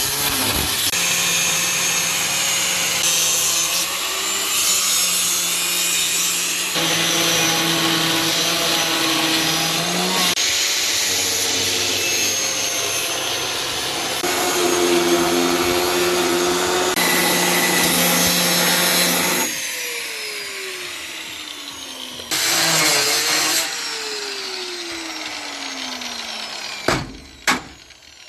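Angle grinder cutting through a wrecked car's sheet-steel body in several long stretches, its motor whining under load. Near the end it winds down twice with a falling whine, then a few sharp hammer blows on metal.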